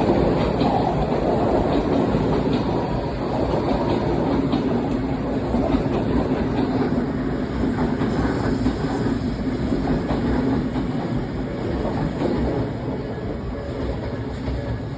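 Odakyu electric train running past at a level crossing, its wheels clacking over the rail joints in an irregular series of ticks over a steady rumble, which gradually fades in the last few seconds.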